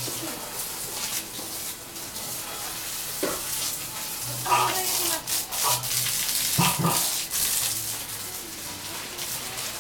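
Water spraying from a garden hose, a steady hiss as the jet patters onto foliage and grass. A few short, louder sounds break in near the middle.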